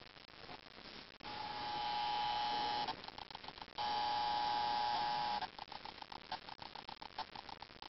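Panasonic Lumix DMC-TZ8 compact camera making an electric buzz, twice for about a second and a half each, followed by a couple of seconds of rapid stuttering clicks. It is the camera's weird fault noise, the reason it was thrown away.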